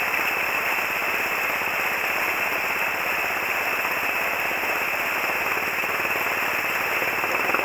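Steady rush of a fast, swollen river running in whitewater rapids.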